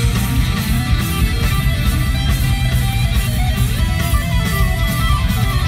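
Power metal band playing live at full volume: distorted electric guitars over bass and steady drums.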